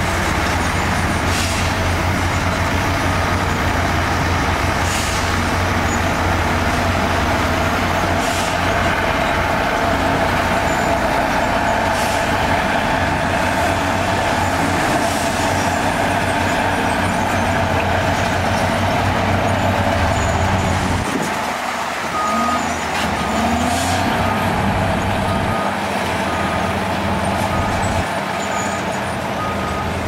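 Heavy 12-wheel dump trucks' diesel engines running steadily while their tipper beds are raised to dump soil, with a bulldozer working nearby. The deep engine drone eases about two-thirds of the way through, and a faint high repeated beep joins near the end.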